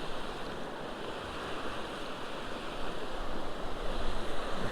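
Creek water rushing steadily over the stream bed, an even hiss of moving water.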